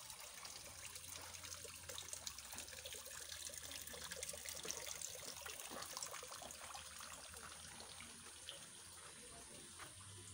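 Water trickling and splashing in a garden pond, a steady crackly wash that swells slightly in the middle and eases off near the end.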